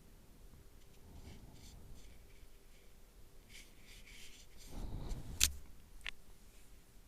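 Faint rustling and handling noises in a small room, with a low thump about five seconds in, followed by a sharp click and a smaller click half a second later.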